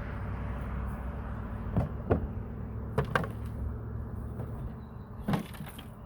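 Several short knocks and clicks, five of them, the loudest about five seconds in, from handling the old mailbox and its hardware, over a steady low background rumble.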